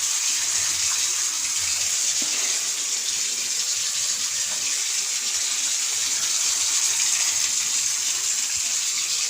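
Running water, a steady, even hiss that carries on without a break.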